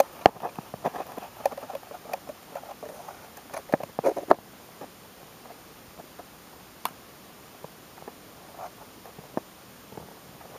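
Handling noise of a camera held to a microscope eyepiece: irregular small clicks and taps, close together for the first four seconds or so and then only now and then.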